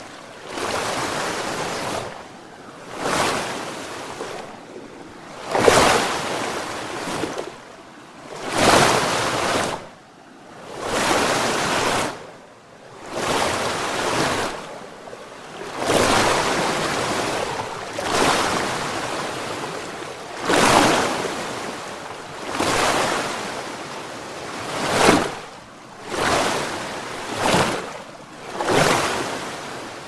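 Rushing water coming in repeated surges about every two seconds, each swelling and falling away, several with a sharp splash at their peak.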